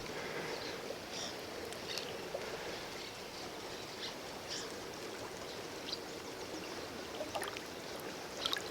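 River water running steadily, with a few faint small splashes or drips.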